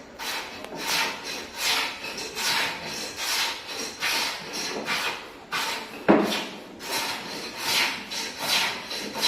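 Rhythmic scraping strokes of a hand tool across wood, a little more than one stroke a second, with a single sharper knock about six seconds in.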